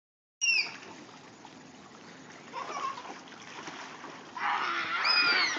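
Water splashing and sloshing as children thrash about in an inflatable backyard pool, growing louder about three-quarters of the way through. A child gives a short high squeal at the start and another near the end.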